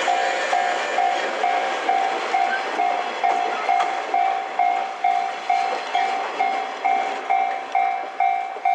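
Railway level-crossing warning bell ringing steadily, about two strikes a second, with a higher-pitched second bell joining about three seconds in, over train running noise.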